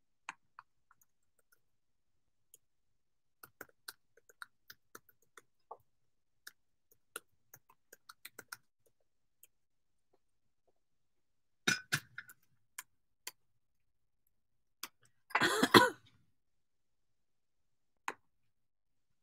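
Scattered light clicks and taps close to the microphone, with a louder sharp knock about twelve seconds in and a louder rough burst of noise around sixteen seconds in.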